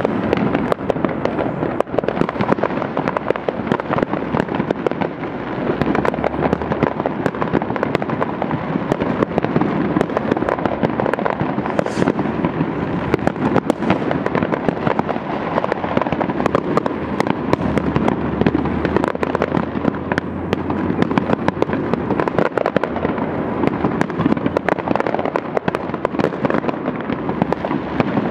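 Many fireworks and firecrackers going off at once across a city: a dense, unbroken crackle of bangs, several a second, near and far bursts overlapping.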